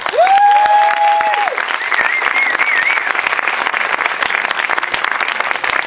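Audience applauding and cheering, with two long held whoops at the start and a high wavering cheer about two seconds in.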